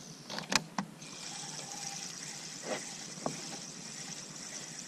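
A few sharp clicks, then a steady high whir of a spinning reel being wound in after a cast, with a single soft knock partway through.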